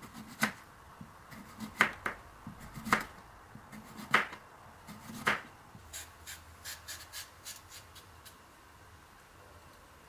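Kitchen knife slicing through a cucumber onto a cutting board, about six sharp cuts roughly a second apart. Then, about six seconds in, a vegetable peeler shaving ribbons off the cucumber in quick, light scraping strokes that fade out.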